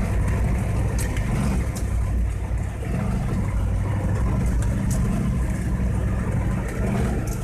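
Monster truck's engine running steadily as it drives over a rough dirt track, heard from inside the cab. Short knocks and rattles come through now and then as the truck bumps along.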